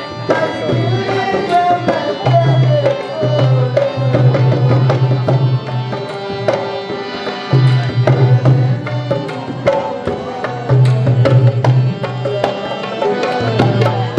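South Asian folk music: tabla-style hand drumming over a low repeating bass, with a melody that slides up and down.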